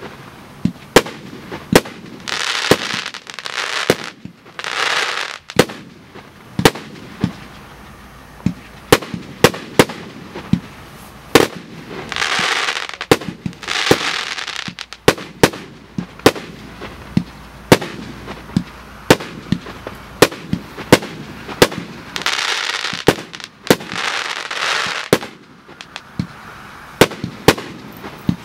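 A 100-shot, 1.2-inch consumer fireworks cake (PyroKaskad 'Russian Cuirassiers') firing shot after shot: sharp bangs of tubes launching and shells bursting, about one or two a second. Three times the bangs are joined by a spell of rushing hiss lasting a few seconds.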